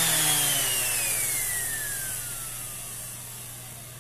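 Bosch GEX 125-1 AE random-orbit sander on a test run after reassembly, its motor winding down: one whine falls steadily in pitch and fades away over about three seconds.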